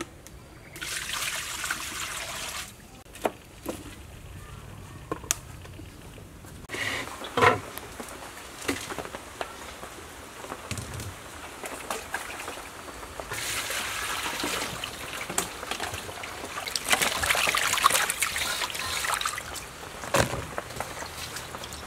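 Water sloshing and splashing in a steel basin as lemongrass stalks are washed by hand, in two longer stretches, with a few sharp knocks between.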